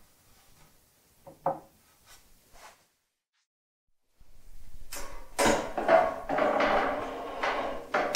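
The metal lid of a Skutt electric kiln being lifted and swung open, with clunks and rattling of the lid and its hinge and a loud knock just before the end. Earlier, a light knock as a dry clay cup is set down on a wooden shelf.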